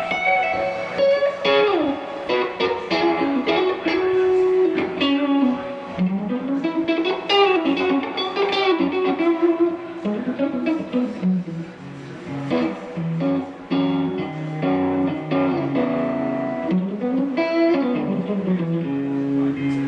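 Suhr electric guitar played through a 3rd Power Dream Weaver combo amplifier: a run of single-note lead lines, many notes bending or sliding up and down in pitch.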